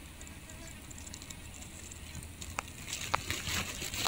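Faint outdoor background, then two or three sharp clicks and light rustling in the second half as the eel hand line is handled and pulled at the hole.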